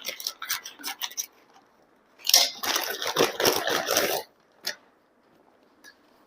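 Product packaging handled and torn open: a few light clicks, then about two seconds of loud rustling and tearing in the middle, then a single click.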